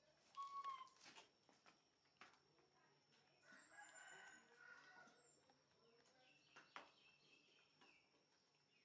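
Faint rooster crowing, one call a little over a second long starting about three and a half seconds in, with high, falling bird chirps around it and a few soft clicks.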